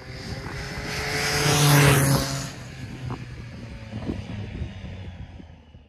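Logo-sting sound effect of a motor vehicle's engine going by: a rising rush that peaks about two seconds in, then fades away.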